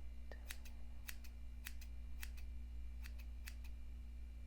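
Small grooming scissors snipping close to the microphone: a run of about a dozen quick, crisp snips, often in pairs, as eyebrow hairs are trimmed.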